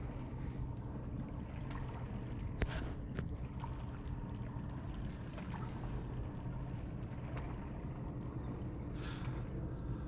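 Steady low hum aboard a small fishing boat on calm water, with a few light, sharp clicks now and then.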